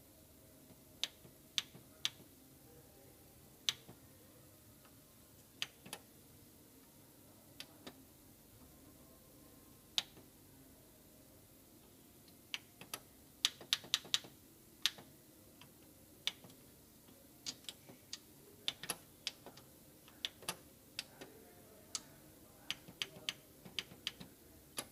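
Plastic arrow buttons on a printer's control panel clicking as they are pressed one at a time, at an uneven pace with a quick run of presses about halfway through, while a Wi-Fi network key is entered character by character.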